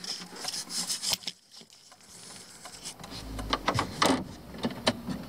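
Handling noise: light clicks, knocks and rustling as a camera is moved about on a car's dashboard, with a dull low thump about three and a half seconds in.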